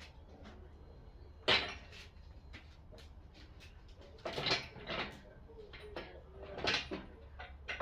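Workshop handling noises of tools and metal parts: one sharp clank about a second and a half in, then two bursts of clattering and knocking, over a low steady hum.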